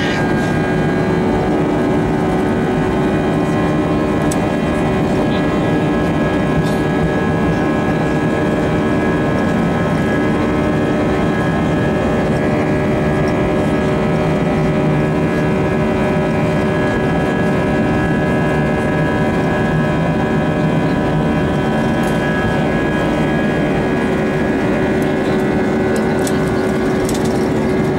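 Airbus A320-232 heard from inside the cabin during its takeoff roll: its IAE V2500 turbofan engines running at takeoff thrust, a loud, steady rush of sound with constant whining tones.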